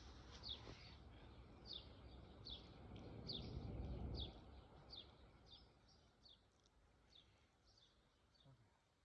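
A bird chirping over and over, a short falling chirp about every three-quarters of a second, growing fainter near the end, over a low rumble that fades out about four seconds in.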